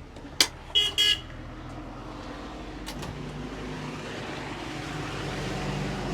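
Street traffic: a sharp click, then two short toots of a vehicle horn about a second in, followed by the rising noise of a passing vehicle's engine.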